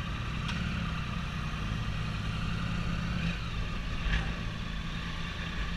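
Triumph Sprint ST 1050's three-cylinder engine running steadily at low revs as the motorcycle rolls slowly forward.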